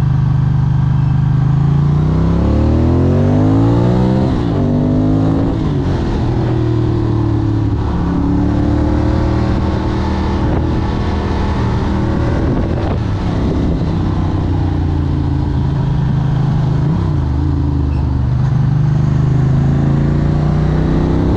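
Capello SP78 moped engine running low and steady, then revved up twice in quick succession a few seconds in, then holding a higher, fairly steady speed with small rises and falls.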